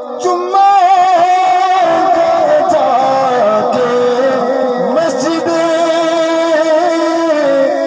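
A man singing a Punjabi naat into a microphone, amplified over a PA, drawing out long wavering notes.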